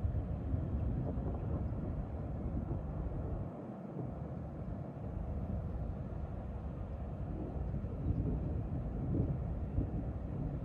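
Steady low outdoor rumble during a thunderstorm, uneven in level, with no single clap or crack standing out.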